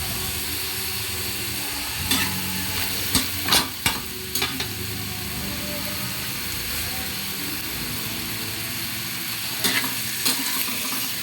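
Food sizzling steadily in a hot pan while a spatula is stirred through it, scraping and clattering against the pan in a cluster of strokes a couple of seconds in and again near the end.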